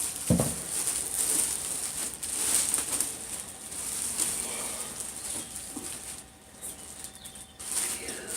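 Rustling and light knocks from a latex mask being handled and turned over, with a soft thump about a third of a second in. It is quieter for a while after about six seconds.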